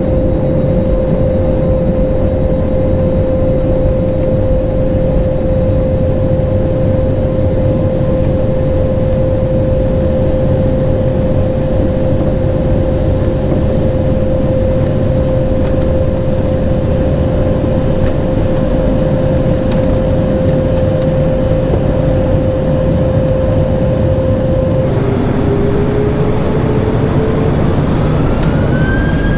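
Jet airliner turbofan engines heard inside the cabin at takeoff power: a loud, steady rumble with a steady whine over it. About 25 seconds in, the sound cuts to another recording, where a whine rises steadily in pitch as the engines spool up for takeoff.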